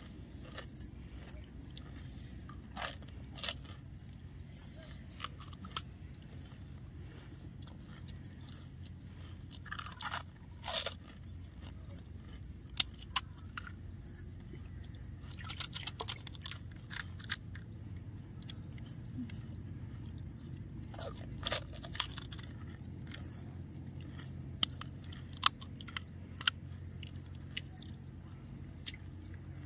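Crisp, hollow pani puri shells being bitten and chewed: scattered sharp crunches over a steady low hum.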